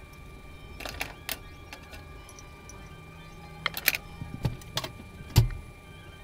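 A few light clicks and knocks as a pat of butter is put into a cast-iron skillet, the loudest knock a little before the end, over a faint steady hum.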